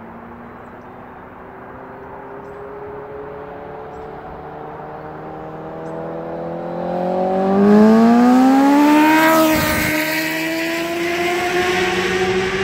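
2014 Honda CBR1000RR inline-four through an unbaffled Austin Racing GP2R carbon exhaust, accelerating hard. The engine note climbs slowly, then rises steeply and gets much louder about seven seconds in. It drops sharply about nine and a half seconds in and runs on at a steady pitch.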